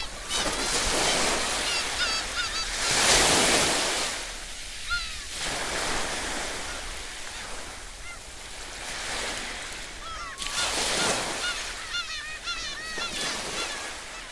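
Sea waves washing and breaking on a rocky shore, surging loudest about three seconds in and again near ten seconds, while birds give short, wavering calls several times over the surf.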